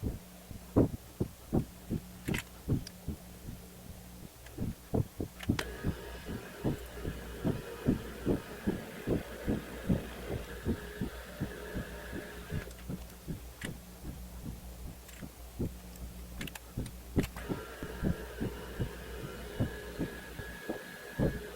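Milling machine running while counterboring holes in a steel plate: a steady hum with regular thumps about two to three times a second. A higher cutting whine comes in about five seconds in, stops around twelve seconds, and returns near the end.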